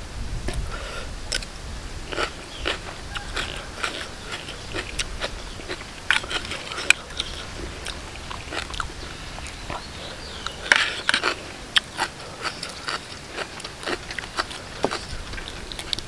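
A person eating close to the microphone: irregular crunchy bites and wet chewing of a spicy lotus-stem salad with raw shrimp, with a burst of louder crunches about eleven seconds in.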